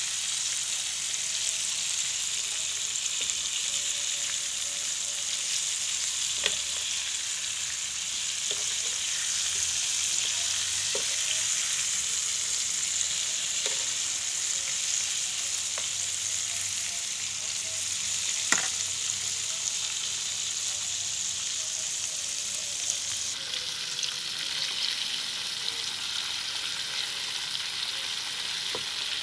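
Flour-coated chicken pieces deep-frying in hot oil, a steady high sizzle. A metal spoon turning the pieces clinks against the pan a few times, loudest about two-thirds through.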